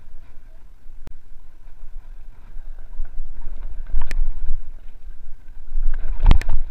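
Mountain bike descending a rough trail: a steady low wind and rolling rumble on the handlebar-mounted camera, with knocks and clatter as the bike hits bumps and rocks, one about a second in, another about four seconds in, and the loudest a little after six seconds.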